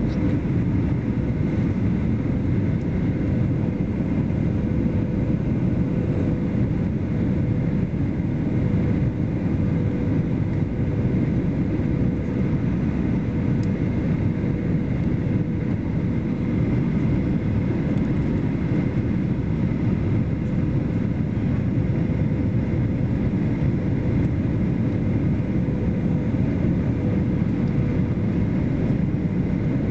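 Airliner cabin noise on the descent to land: the steady rush of engines and airflow, with a faint steady hum held through it.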